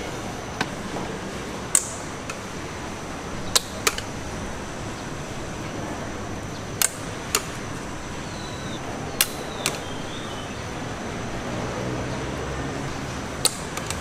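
A knife chopping on a cutting board: about ten sharp knocks at irregular intervals, several in quick pairs, over steady background noise.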